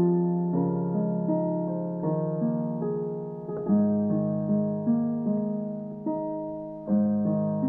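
Background music: slow piano notes and chords, each struck and left to ring and fade.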